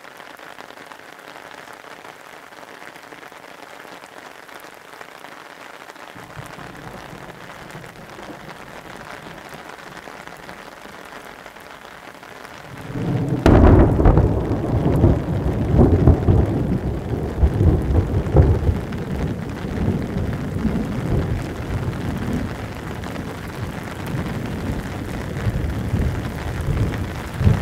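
Steady rain falling for the first half, then a sudden, loud clap of thunder about halfway through that rolls on as a long, uneven rumble over the rain.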